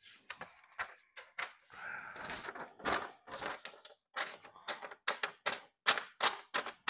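A knife blade worked through a sheet of paper in a series of short, rough, papery rasps, faster and more regular in the second half: a paper-slicing test. The edge is still dull, so it snags and tears the paper instead of slicing cleanly.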